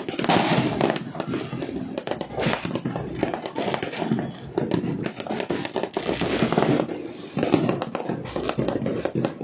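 Many fireworks and firecrackers going off at once across a city: a dense, uneven run of overlapping pops and bangs.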